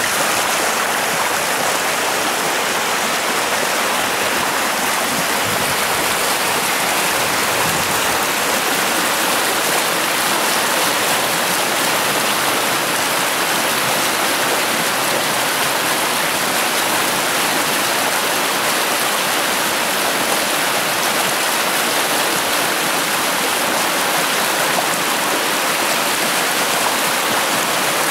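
Steady rushing of a small rocky stream, whitewater tumbling over rocks.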